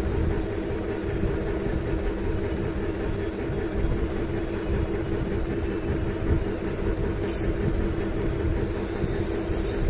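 Steady machine hum, like a running motor, throughout, with two short hisses about seven and nine seconds in.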